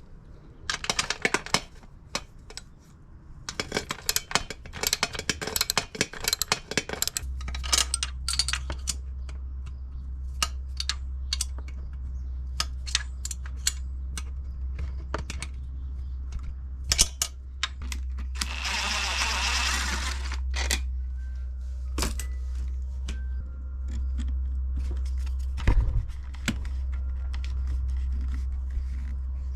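Metal clinks, clicks and rattles as exhaust springs and a two-stroke expansion pipe are worked off a dirt bike. A low steady hum comes in about a quarter of the way through, and a short rushing noise lasting about a second and a half comes about two-thirds in.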